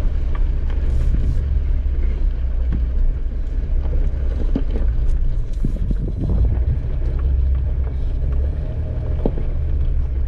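Off-road vehicle driving a rough dirt trail: a steady low rumble of engine and tyres, with scattered knocks and rattles from the bumpy ground.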